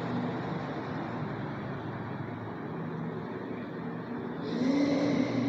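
Steady low rumble of a running motor vehicle, with a faint hum, swelling briefly near the end.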